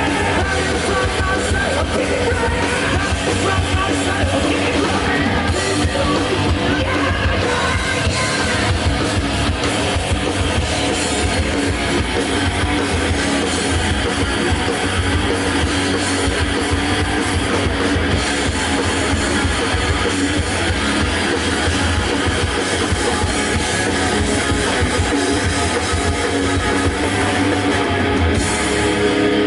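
Heavy rock band playing live: distorted electric guitars, bass and drum kit, loud and steady.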